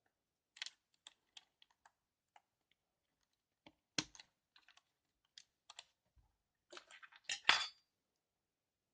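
Scattered light plastic clicks and taps from Cherry MX mechanical keyboard switches and the keyboard being handled, with a sharper knock about four seconds in and a louder cluster of clicks near the end.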